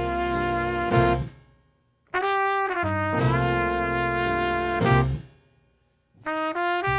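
Jazz quintet playing, with horns carrying the melody over bass. The band stops dead twice for about a second of silence between phrases.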